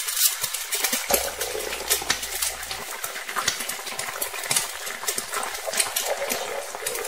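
Chopped onion frying in hot oil in an aluminium pot: steady sizzling with dense crackling. A metal spatula scrapes and clinks against the pot as it is stirred.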